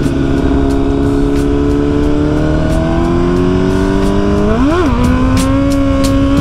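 Sport motorcycle engine heard from the rider's seat, its revs climbing slowly and steadily under way. A little under five seconds in, the revs swing quickly up and back down, then carry on at a slightly higher pitch.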